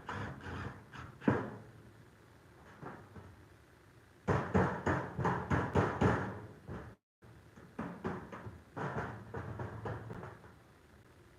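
Power driver sinking screws through the steel skin of a garage door section to fasten a lock plate, in two bursts of rapid clicking about four and eight seconds in.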